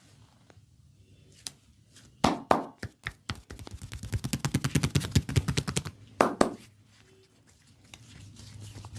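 Massage percussion: hands slapping and chopping on bare skin. There are two loud slaps a little over two seconds in, then a fast run of chopping strikes, about ten a second, lasting a couple of seconds, and then another loud slap.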